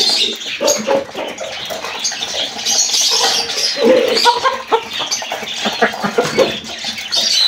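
Chickens clucking in a wire cage: short, irregular calls among rustles and light knocks as the birds move about.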